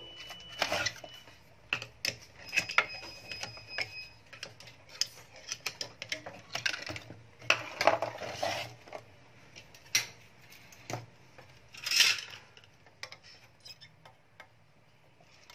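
Irregular clicks, knocks and light metallic clinks from a screwdriver, screws and an inverter circuit board with its aluminium heatsink being handled on a workbench, loudest about eight and twelve seconds in.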